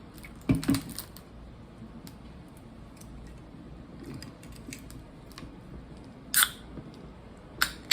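A can of Monster energy drink being handled and opened: a couple of knocks about half a second in, then two short, sharp, hissing snaps near the end as the pull tab is worked open.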